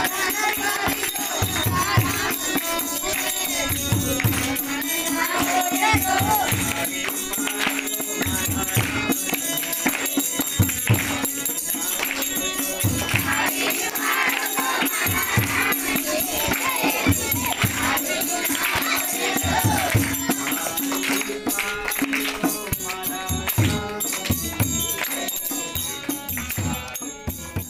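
Gujarati bhajan sung to harmonium and tabla, the harmonium holding a steady drone under the melody while the tabla's low drum strokes keep the beat and group voices and hand claps join in. The music fades near the end.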